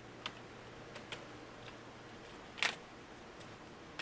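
Light clicks and taps of a plastic laptop chassis and its parts being handled on a work mat, with one louder knock about two and a half seconds in.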